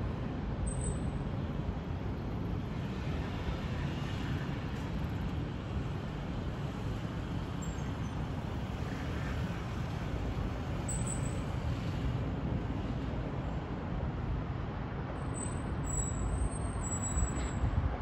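Steady rumble of distant urban road traffic, heaviest in the low range, with a few faint high chirps about a second in, midway and near the end.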